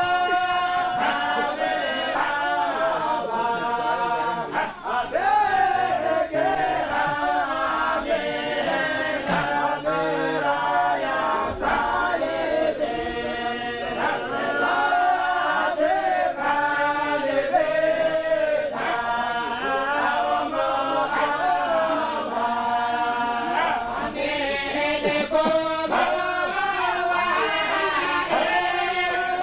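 A group of men chanting together in unison: a Sufi devotional chant of the Shadhiliyya Yashrutiyya order, in long, wavering melodic lines.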